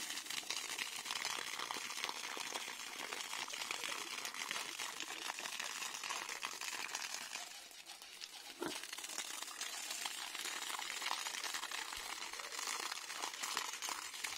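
Stream of water pouring from a raised pipe and splashing steadily onto the ground, briefly softer a little past halfway.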